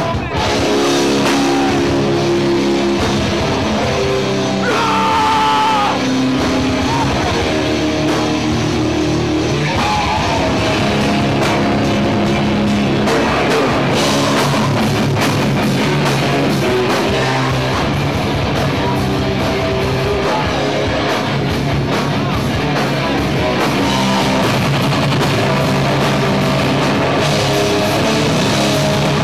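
Hardcore punk band playing live: distorted electric guitars, bass guitar and drums, with a singer's vocals over them.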